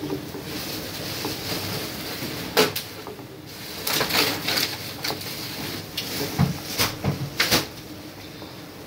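Wooden spoon stirring curry in a clay pot, knocking against the pot's side and rim several times at irregular intervals.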